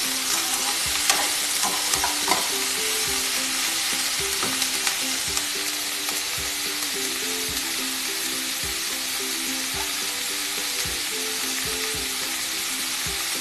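Chopped onions sizzling steadily in hot oil in a kadhai, fried toward light brown, with a spatula clicking and scraping against the pan during the first couple of seconds.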